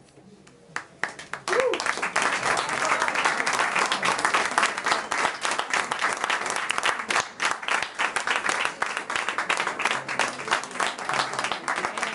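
After a short quiet pause, an audience breaks into applause about a second in and keeps clapping densely.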